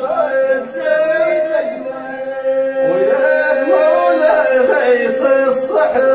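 Men's voices chanting unaccompanied rasma, the sung poetry of Zagora: one voice holds a long steady note while another voice moves through a melody around it.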